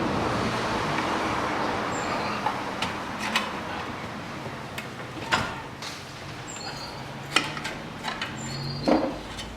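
Scattered metallic knocks and clanks with a few short high squeaks, from a Ford Ranger 2.5 turbo diesel engine being worked loose from its gearbox on an engine crane. A rushing noise fades over the first few seconds.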